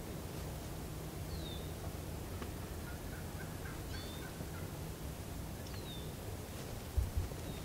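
Wild turkey calling: a quick run of short notes about three seconds in, with a few faint songbird chirps. A low double thump near the end is the loudest sound.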